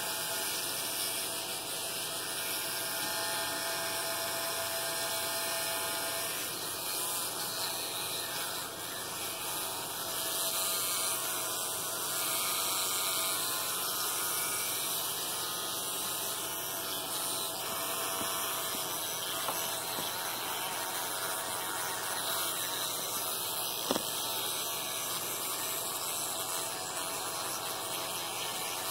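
Children's electric toothbrush running steadily, a continuous even hum while a capuchin monkey holds it and brushes with it in his mouth.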